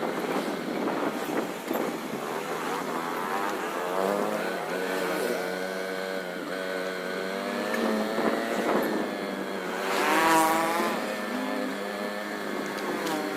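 Motor vehicle engine running on the road, its pitch wavering up and down with changes in speed, rising to a louder rev about ten seconds in.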